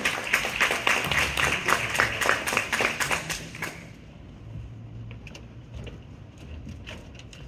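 Audience applauding for nearly four seconds, then the clapping dies away. The rest is quieter, with a few scattered faint knocks and footsteps on the stage.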